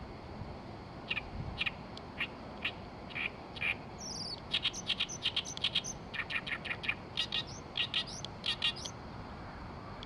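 Oriental reed warbler singing: a few separate notes spaced about half a second apart, then from about four seconds in a fast run of notes lasting about five seconds.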